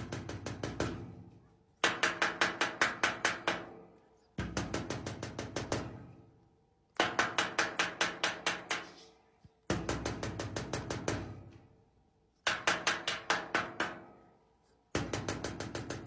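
Rapid knocking in repeated runs of about eight to ten quick strikes, each run fading out, starting again every two and a half seconds or so.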